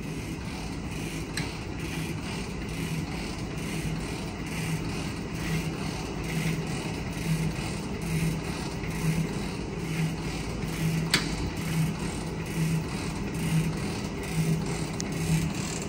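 Stanko 7A420 vertical slotting machine running with its table power-feeding in cross travel: a steady mechanical hum from the drive, pulsing about once a second. A single sharp click comes about eleven seconds in.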